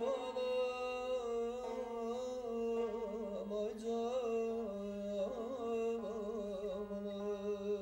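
Azerbaijani mugham played by a small ensemble of tar, kamancha and daf: a sustained melodic line with wavering, trilled ornaments.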